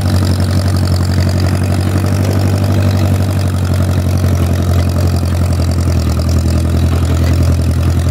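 Old Case loader tractor's engine running steadily at an even speed.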